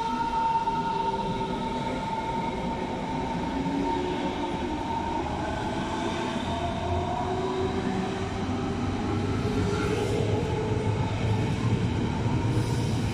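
A Berlin S-Bahn electric train pulling out and accelerating past along the platform. Its traction motors give a whine that has just finished rising and then holds steady at one pitch with several tones over it, while the rumble of the wheels on the rails grows as the last cars go by.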